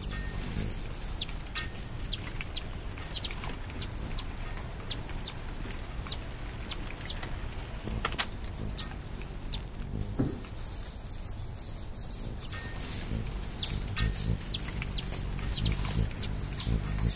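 Steady high-pitched insect trill, cricket-like, that breaks off for about two seconds in the middle, with scattered short chirps and clicks over a low rumble.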